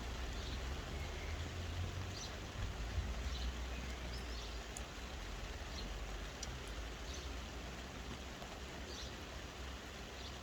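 Steady soft rain, an even hiss with a low rumble beneath it, and faint short high chirps now and then.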